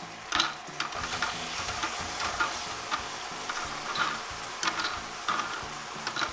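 Continuous sizzling frying sound, broken by several light clacks of toy food and utensils on a wooden toy stovetop and pan.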